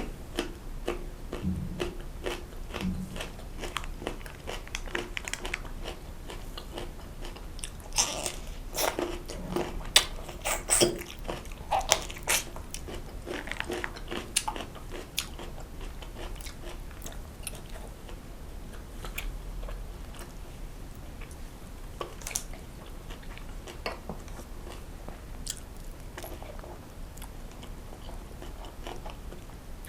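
Close-miked eating sounds: a person biting and chewing food, with wet mouth clicks and smacks. The bites and smacks come thickest and loudest from about a third of the way in.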